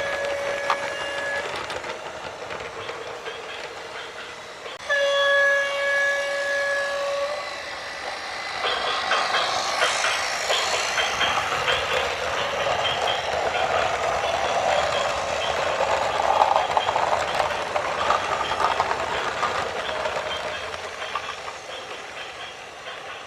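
A vehicle horn blows twice, the second blast about two seconds long, followed by a long, loud rumbling noise full of clattering as something heavy passes.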